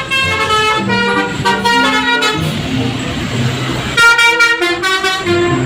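Multi-tone "telolet" bus horn playing a short melody of changing notes, with a hiss partway through, then loud stepped horn notes near the end.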